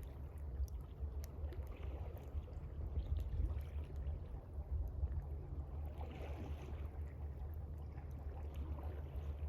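Gentle water lapping in soft swells over a steady low rumble, with faint scattered crackles from a campfire.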